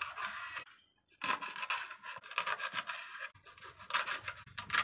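Large knife sawing through a ribbon fish on a wooden chopping board, cutting it into chunks: a run of short rasping scrapes, with a brief pause about a second in.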